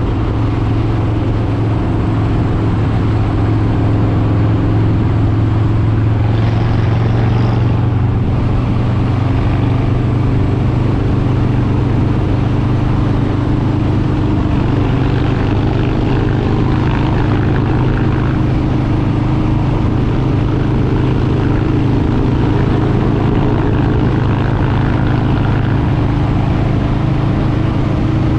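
Harley-Davidson Street Bob 114's Milwaukee-Eight 114 V-twin engine running at a steady, even pace while riding, its pitch holding nearly level with only slight drifts.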